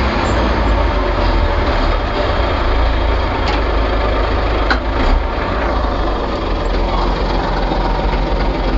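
Excavator's diesel engine running steadily with a deep rumble, with a few short metallic knocks about three and a half and five seconds in.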